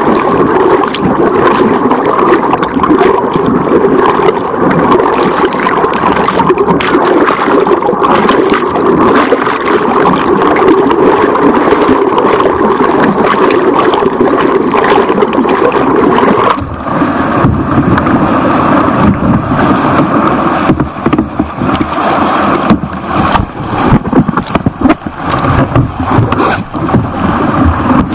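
Loud rushing and splashing of shallow stream rapids close to the microphone. About sixteen seconds in, the water sound turns choppier and is broken by irregular knocks and buffeting.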